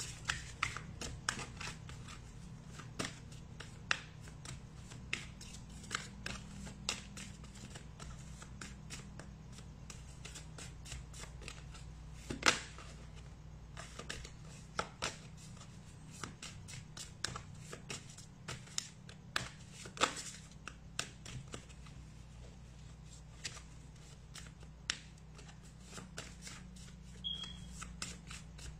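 A deck of Karma Cards being shuffled by hand: a long run of light, irregular clicks and flicks of cards, with a couple of sharper snaps, over a steady low hum.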